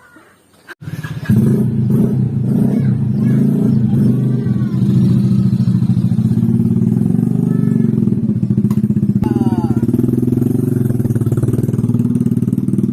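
Motorcycle engine running steadily, cutting in abruptly about a second in.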